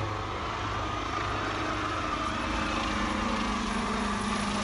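Helicopter flying low overhead: a steady engine and rotor noise with a humming tone in it.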